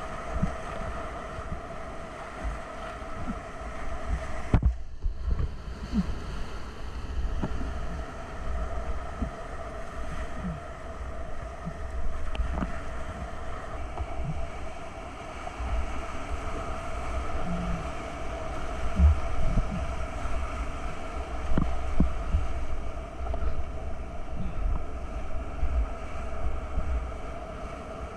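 Whitewater rapids churning loudly around a kayak, heard close up, with irregular low thumps and buffeting as water slaps against the boat and microphone. About four and a half seconds in the sound is briefly muffled for under a second.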